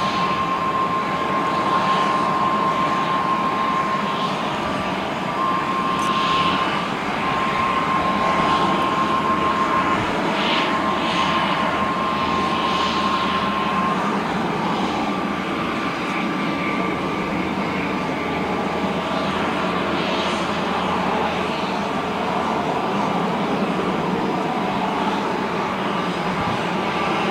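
Boeing 747-8 airliner making a steady high whine over a broad rush of jet noise while a tug pushes it back. The whine steps slightly higher about halfway through.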